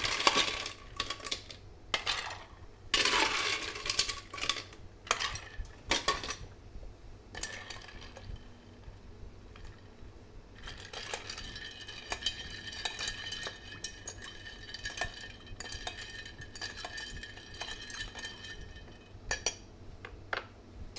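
Ice scooped from a metal ice bucket and tipped into a ceramic teapot, clattering twice in the first few seconds. Then a bar spoon stirs the ice in the pot for about ten seconds, a steady tinkling rattle, chilling the brewed tea in place of shaking it.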